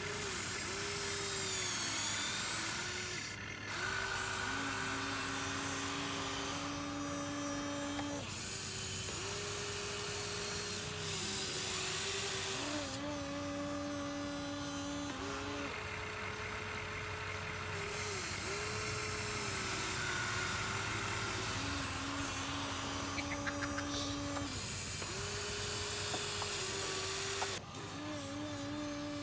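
Small electric gear motors of a Huina 1593 RC toy excavator whining on and off as it digs sand. The whine steps between a few pitches every couple of seconds as motors start, stop and change load.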